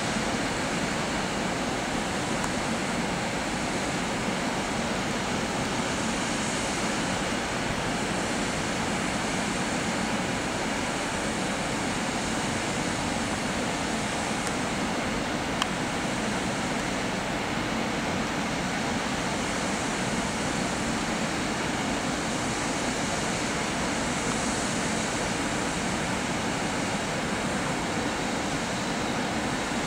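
EP07 electric locomotive standing at a platform with its cooling blowers running, a steady whooshing drone that neither rises nor falls.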